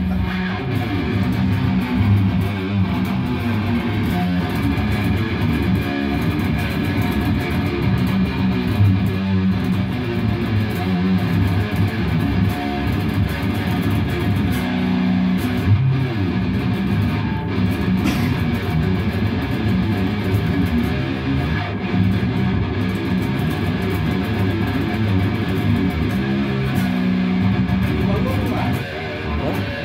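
Jackson electric guitar tuned down to B, playing low heavy metal riffs without a break.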